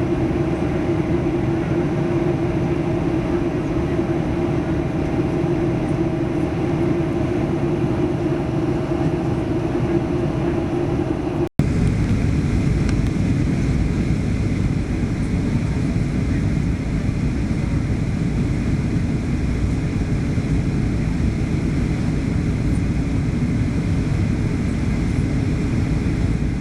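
Steady cabin noise of a Boeing 737-800 in flight: a constant rush of engine and airflow noise, with a steady hum tone in the first part. About eleven seconds in, the sound drops out for an instant at an edit cut, then resumes as the same rush without the hum.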